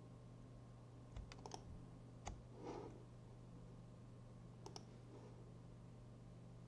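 Faint, scattered clicks of a computer mouse and keyboard being worked: a quick run of three about a second in, one more just after two seconds, and a pair near five seconds, over a steady low hum.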